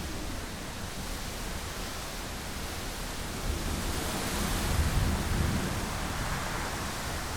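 Storm wind noise: a steady rushing hiss with a low rumble underneath, swelling in loudness about four to five seconds in.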